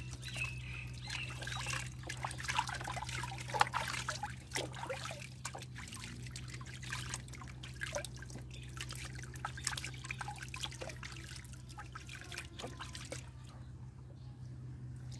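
Bathwater splashing and trickling as hands scoop and pour it over a baby monkey in a plastic tub, busiest in the first few seconds and lighter after that, over a steady low hum.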